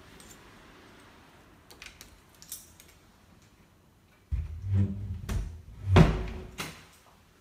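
Handling noise from a phone camera being carried through a flat: a few faint clicks, then a run of low thumps and knocks starting about four seconds in, loudest near six seconds.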